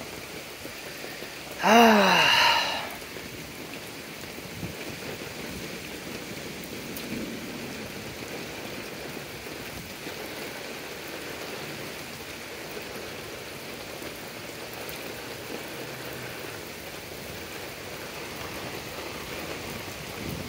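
Steady rain falling on wet pavement. About two seconds in, a brief loud sound falling in pitch cuts across it.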